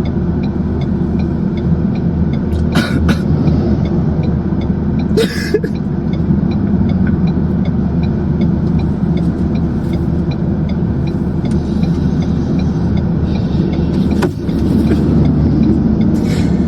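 Steady low rumble of a car at highway speed, heard from inside the cabin: tyre and engine noise. A faint, evenly spaced ticking runs through it, and a few brief rustles or knocks stand out.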